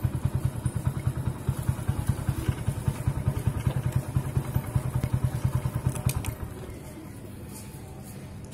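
Motorcycle engine idling with a fast, even putter, dying away about six seconds in.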